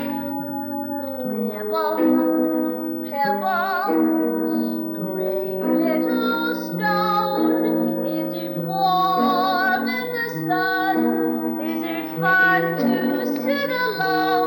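A woman singing a slow stage-musical ballad with vibrato over sustained instrumental accompaniment. A held chord opens, and her voice enters about two seconds in.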